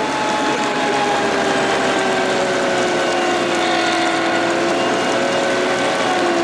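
Kubota D1105 three-cylinder diesel and its vacuum blower on a Madvac ride-on litter vacuum, running steadily with a whine that slowly falls in pitch.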